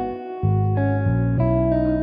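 Background music led by plucked guitar over low bass notes, the notes changing every fraction of a second.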